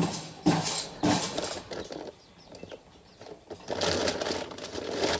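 Dry feed and corn rattling and rustling as it is scooped and poured for a horse, in short bursts with a pause around the middle.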